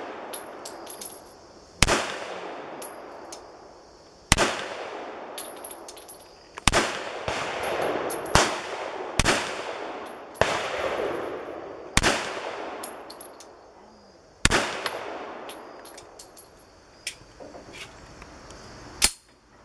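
A Colt 1911 .45 ACP pistol fires a slow string of single shots, loud cracks a second to a few seconds apart. Each trails off in a long echo, with fainter sharp ticks between the shots.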